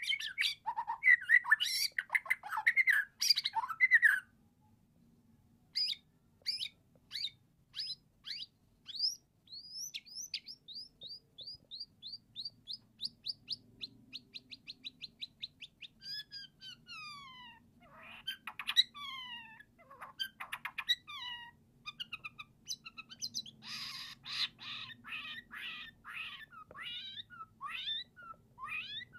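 Young white-rumped shama (murai batu), about eight months old, singing a varied song. It opens with loud, harsh chirps for the first few seconds, then runs into long series of quick repeated notes and falling slurred whistles, and ends with a fast chattering run.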